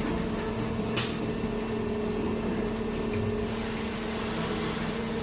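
YJ-150CNC automatic circular-saw pipe-cutting machine running with a steady motor hum, with a short click about a second in.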